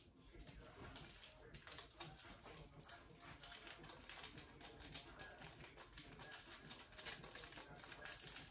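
Faint crinkling and crackling of small plastic noodle seasoning packets being torn open, squeezed and shaken out over a bowl, a quick run of small clicks.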